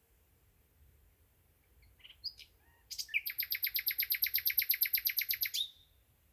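Common nightingale singing: a few short separate notes about two seconds in, then a fast, evenly repeated phrase of rich notes, about ten a second, that lasts some two and a half seconds and breaks off sharply.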